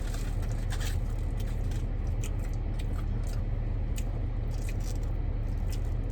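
Close-up eating sounds: chewing and crunching of food, with scattered crisp clicks, over a steady low rumble of the car cabin.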